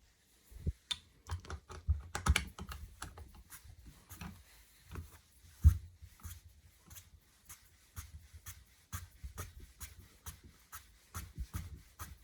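Irregular small metal clicks and taps from a small precision angular vise being handled and worked, with one sharper knock about six seconds in.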